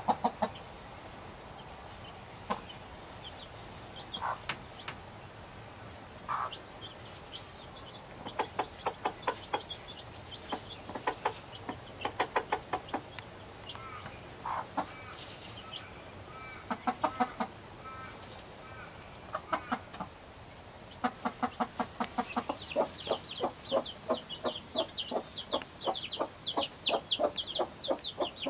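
Broody hen clucking softly in runs of quick, rhythmic clucks. Day-old chicks peep with short high chirps, now and then at first and almost without pause over the last third.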